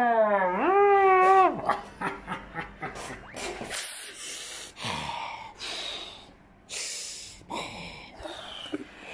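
A drawn-out, wavering vocal cry lasting about a second and a half. It is followed by a string of short breathy huffs and snickers.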